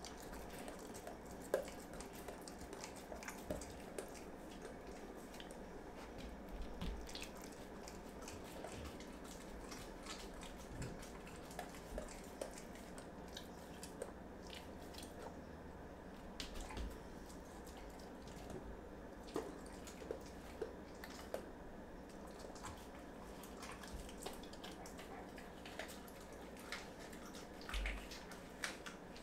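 A dog eating homemade raw food: wet licking, smacking and chewing with irregular small clicks and a few soft thumps.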